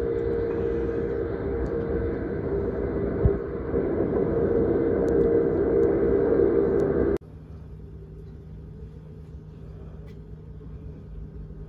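Cabin noise inside a moving Fuxing train: a loud, steady rumble with a constant hum. About seven seconds in it drops off abruptly to a much quieter steady hum.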